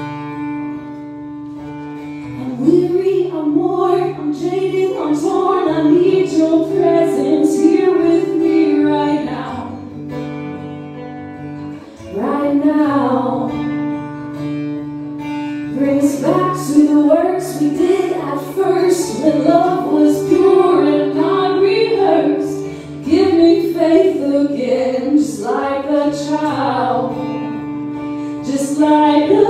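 A woman singing a worship song to acoustic guitar accompaniment. The guitar plays alone for about the first two and a half seconds before the voice comes in, and the singing pauses briefly twice while the guitar carries on.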